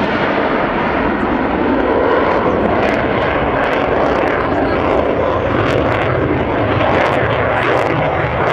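Saab JAS 39 Gripen fighter's single Volvo RM12 turbofan engine heard in flight: a loud, steady jet noise that neither rises nor falls.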